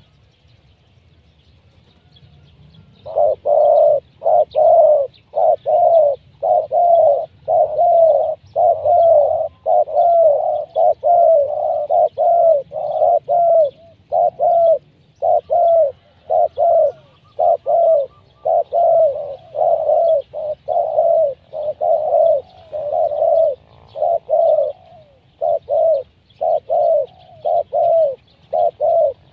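Spotted dove cooing: after a quiet first three seconds, a long run of short, evenly repeated coos at about two a second, kept up with only brief pauses.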